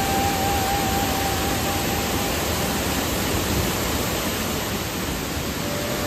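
Shizuku waterfall pouring into its pool: a loud, steady rush of falling water. A thin, high held tone sounds over it for the first two seconds or so.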